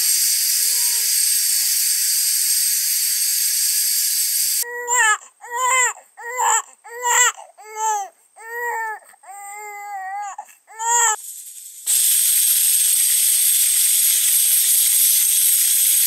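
A baby crying in about nine short, rising-and-falling wails over several seconds, between stretches of steady hiss at the start and near the end.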